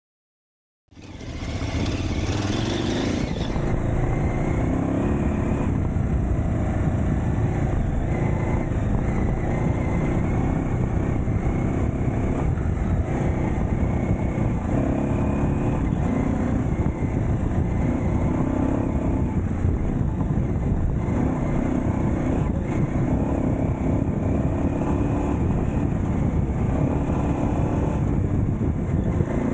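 KTM 950 Adventure's V-twin engine running under way on a gravel road, heard through a bike-mounted camera with heavy wind and road rumble. The sound cuts in suddenly about a second in and then stays steady, its engine note shifting a little with the throttle.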